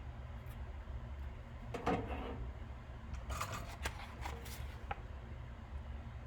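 Small handling noises on a workbench: a few clicks and short scraping rustles, as parts and tools are moved while fitting a component onto a radio circuit board, over a steady low hum.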